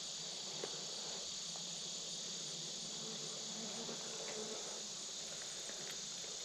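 Steady, unbroken high-pitched chorus of insects, crickets or katydids, droning without pause, with a few faint clicks.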